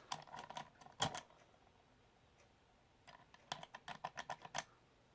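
Small sharp metal clicks and taps from handling a lock and its picking tools. They come in a cluster in the first second, with one louder click, then as a run of separate clicks in the second half.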